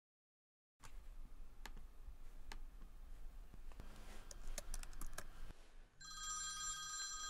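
A few scattered laptop keystrokes and clicks, then a mobile phone ringtone starts about six seconds in, a steady electronic ring of several pure tones.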